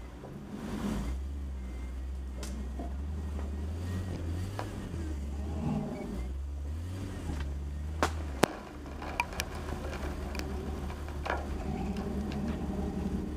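Jeep Cherokee's engine running at low speed as it crawls along a rocky trail, a steady low drone. Two sharp knocks come about eight seconds in, followed by a few lighter clicks and knocks.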